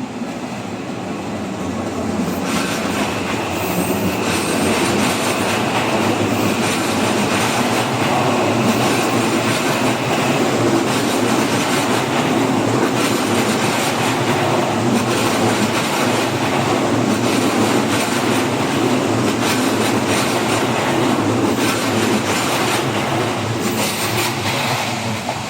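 Odakyu Line electric commuter train passing close by at a level crossing, its wheels clattering over rail joints and the junction points where the lines merge. It builds up over the first couple of seconds, runs loudly, and begins to fade near the end.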